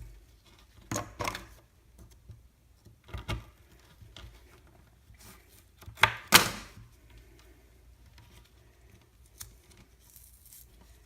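The cardboard tube of a Whistling Pete firework being cut and torn open by hand: scattered short tearing and scraping sounds, the loudest pair about six seconds in.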